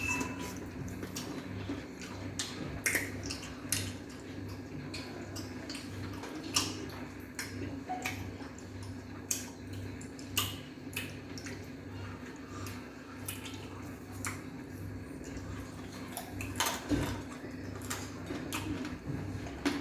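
Eating sounds of a mukbang: irregular mouth clicks and smacks as fufu is eaten with ogbono and vegetable soup, over a steady low hum.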